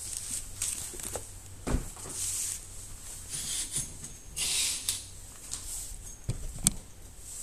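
Paperback service manuals being handled and slid across a tabletop: rustling of covers and pages with a few knocks as books are set down, the sharpest about two seconds in and near the end.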